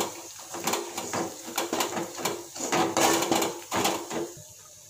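Spoon scraping and knocking against a metal kadai while onions and spices are stirred in oil, in quick uneven strokes; the stirring eases off near the end.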